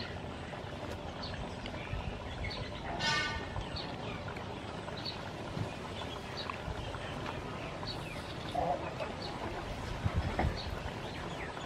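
Outdoor rural ambience with small birds chirping now and then, and one short, louder pitched call about three seconds in.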